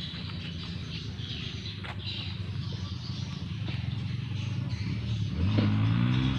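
A motor engine running with a steady low hum, which grows louder from about five seconds in as its pitch shifts up. Faint bird chirps sound above it.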